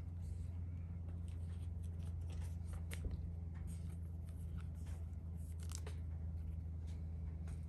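Cardfight!! Vanguard trading cards handled and slid against one another, faint scattered clicks and scrapes, with a sharper tick about three seconds in and another near six seconds, over a steady low hum.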